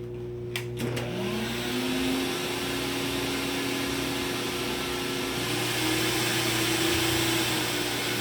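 Hoover Supremacy canister vacuum switched on with a click, its motor winding up to a steady whine with a rush of air. About five seconds in the motor's pitch rises and the airflow gets louder as the speed control is turned up.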